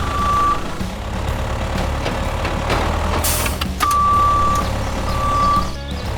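Heavy vehicle engine running with a reversing beeper: one beep at the start, then two more around four and five seconds in. A short hiss comes just after three seconds in.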